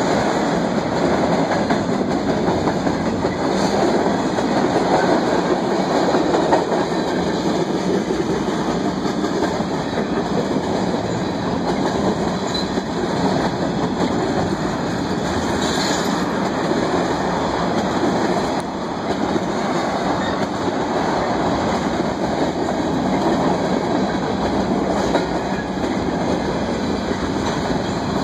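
CSX freight train's tank cars and covered hopper cars rolling steadily past close by, a continuous rumble of wheels on rail. A brief high-pitched squeal rises over it about sixteen seconds in.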